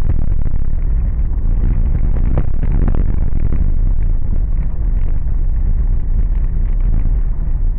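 Car driving on a rough unpaved road: a steady low rumble of engine and tyre noise, with a few short knocks and rattles a little under three seconds in.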